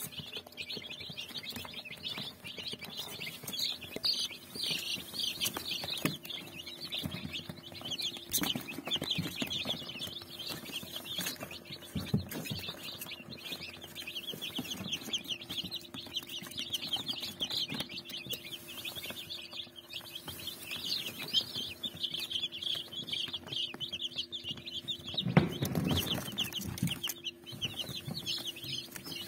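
A brood of baby chicks (Brahma, Lohmann Brown and broiler) peeping continuously in a dense, high-pitched chorus. A few knocks sound over it, and there is a louder rustling thump near the end.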